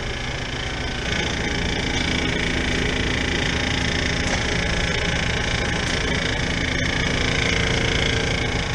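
Rooftop air-conditioning unit running: a steady mechanical hum from the compressor and condenser fan that gets louder about a second in.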